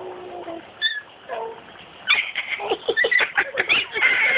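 Puppy whining and squeaking: a held cry at the start, a few short high-pitched squeaks, then a busy run of quick squeaks and yips from about halfway.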